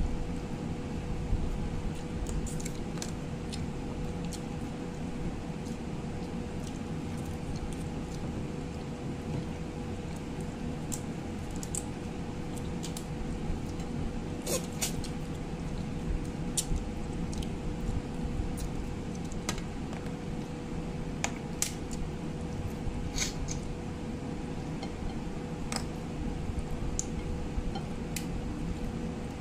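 Eating by hand: scattered short sharp clicks and crunches of crab shell being pulled apart and chewed, with fingers working rice on a plate, over a steady low hum with a faint constant tone.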